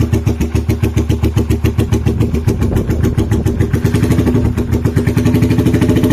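Keeway Supershadow motorcycle engine idling through a full-system exhaust, a steady beat of about eight exhaust pulses a second. About four seconds in the pulses quicken as the revs pick up slightly.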